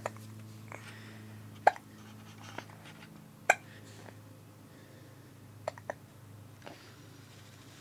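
A baby hiccupping repeatedly: short, sharp hiccups, the two loudest about two seconds apart, with fainter ones between and after. A steady low hum runs underneath.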